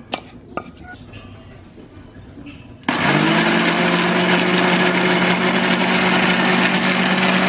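Philips countertop blender switched on about three seconds in, its motor spinning up at once and then running at a steady pitch as it purées cooked black rice porridge into smooth baby food. A couple of light clicks come first, as the jar is loaded.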